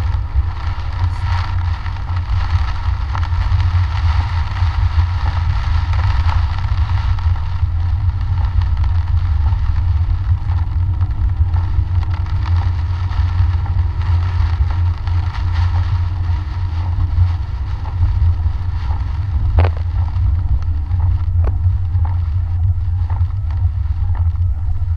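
Car driving on a rain-soaked road in heavy rain, heard from inside the cabin: a steady low rumble with a hiss of rain and wet tyres. Two short clicks come a couple of seconds apart near the end.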